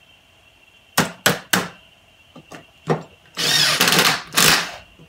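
Cordless drill/driver run in short trigger bursts, backing out fasteners on an air-engine cylinder: three quick blips about a second in, then two longer runs of about half a second each near the end.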